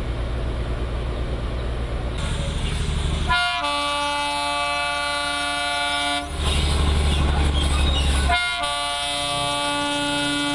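Narrow-gauge diesel locomotive No. 602 of the Darjeeling Himalayan Railway sounding its horn in two long blasts, each about three seconds, with its engine rumbling low between them as it approaches.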